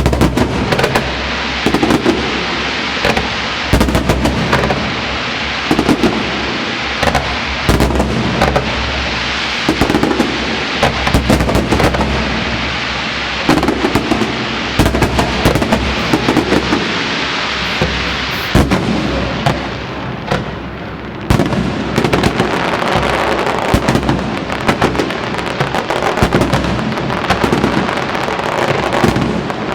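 Fireworks display: aerial shells bursting in a continuous barrage, many sharp bangs in quick succession over a steady wash of noise. The barrage dips briefly about two-thirds of the way through, then resumes with a loud bang.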